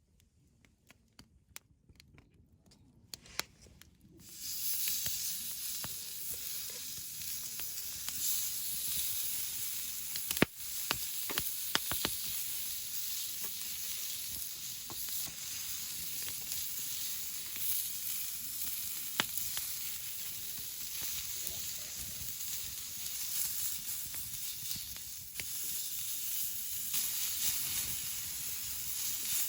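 Meat sizzling as it cooks, a steady hiss with scattered sharp pops of spitting fat, starting about four seconds in after a few quiet clicks.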